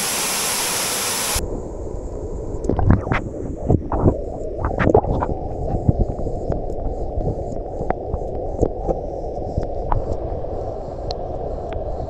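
Waterfall pouring into a shallow rock pool, a steady rush. About a second in the sound turns dull and low, with water lapping and knocking right at the water's surface and several sharp splashes in the first half.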